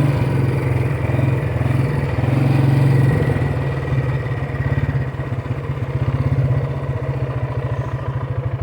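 Engine of a small farm vehicle running as it is driven. It is louder for the first three seconds, then eases off and settles into an even pulsing.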